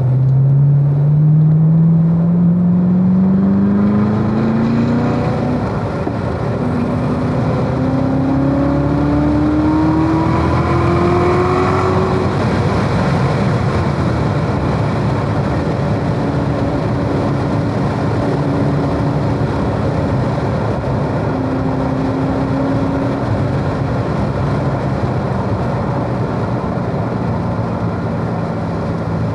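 Supercharged 6.2-litre LT4 V8 of a 2017 Corvette Z06, heard from inside the cabin, pulling hard out of a slow corner with its note rising steadily for about twelve seconds. After that the engine note steadies and wind and tyre noise take over as the car lifts and slows for the next corner.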